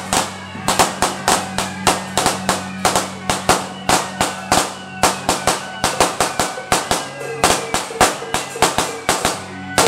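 Temple-procession percussion: gongs and cymbals clashing in a fast, driving beat of about five strikes a second, each strike ringing, over a steady low tone.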